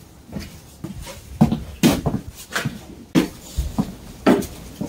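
Heavy footsteps of rubber boots on wooden boards: a series of knocking thuds about every half second, starting about a second and a half in.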